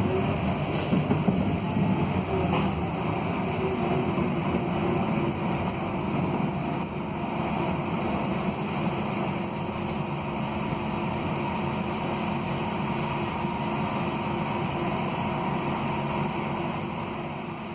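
A Scania DC09 five-cylinder Euro 6 diesel, the engine of a Scania K280UB city bus, running as a steady drone heard from inside the passenger cabin. A faint steady whine joins it about halfway through.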